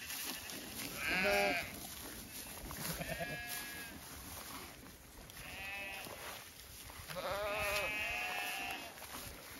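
Zwartbles sheep bleating, about four bleats a couple of seconds apart, the loudest about a second in.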